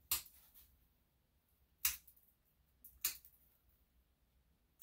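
Four short, sharp snipping clicks, a second or two apart, from a dog groomer's cutting tool working on a Yorkshire Terrier puppy's coat or nails.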